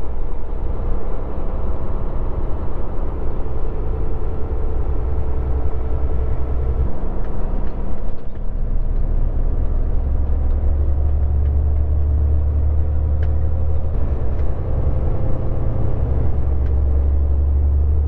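Transport truck's diesel engine and tyre noise heard from inside the cab while cruising on the highway, a steady low drone. The drone shifts about seven seconds in and grows stronger from about ten seconds in.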